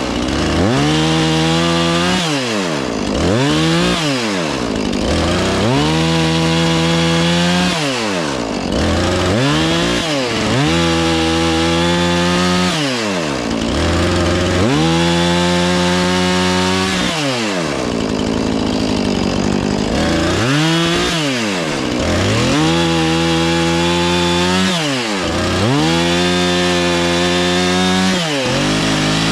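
Husqvarna 450 Rancher two-stroke chainsaw cutting wood. The engine is throttled up, held at speed through each cut and let back down, about eight or nine times.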